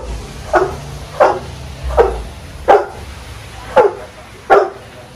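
Pitbull barking, about six short barks each dropping in pitch, spaced under a second apart, while it waits for a piece of raw chicken held above it.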